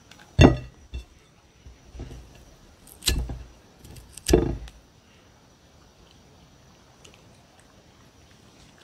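Cucumber and hand knocking against a ceramic plate while the cucumber is pressed and broken into pieces on it: three sharp clinks that ring briefly and a couple of lighter knocks, all within the first five seconds.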